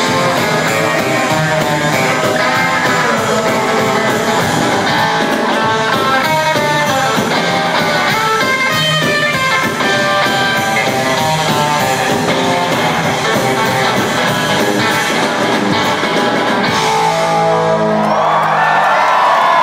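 Live rockabilly band playing an up-tempo instrumental, led by a hollow-body electric guitar over drums. About three seconds before the end the rhythm stops and the band holds a final ringing chord.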